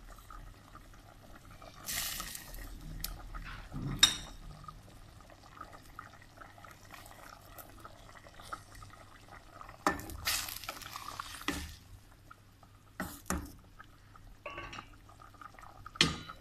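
Stainless steel pot of potato-mince curry with water simmering, bubbling softly, broken by kitchen handling noises: short rushing bursts about two and ten seconds in, and sharp metal clinks of the pot and utensils, the loudest about four seconds in and another near the end.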